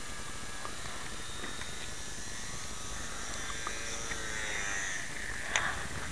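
Sport Cub S RC plane's small electric motor whining faintly over steady background hiss, its pitch falling between about three and five seconds in as it throttles down and lands. A single sharp click near the end.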